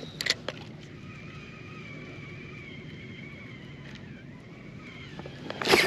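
Spinning reel being cranked, its gears giving a steady, even-pitched whirring whine as line is wound in, after a couple of light clicks at the start. A sudden loud burst of noise cuts in near the end.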